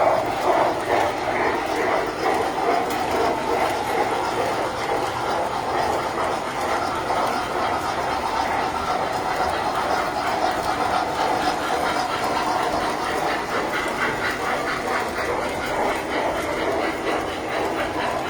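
Tinplate toy trains running on metal track: a steady rumble of wheels and motors with fast, even clicking over the rails.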